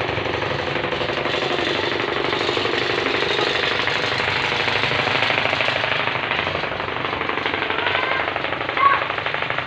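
Homemade carpet dust-beating machine running, its beaters striking the carpet in a rapid, continuous hammering. A brief louder blip sounds near the end.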